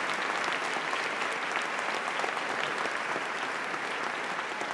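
Large audience applauding steadily: a dense, even wash of many hands clapping.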